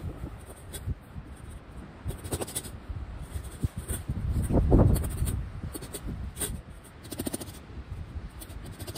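Wind buffeting the microphone, swelling to a loud rumble about halfway through, over a run of quick crunches and knocks from footsteps and handling in snow.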